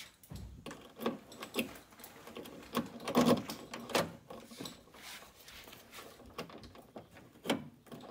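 Key working a newly installed door lock cylinder in a 1974 Corvette door: irregular clicks and clacks from the lock mechanism and keys as it is turned between locked and unlocked, the loudest clack about three seconds in.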